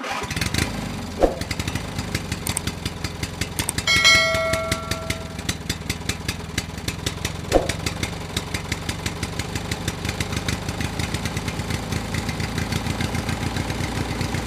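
Small engine idling with a steady chugging hum and a fast, even run of ticks. A brief horn-like tone sounds about four seconds in.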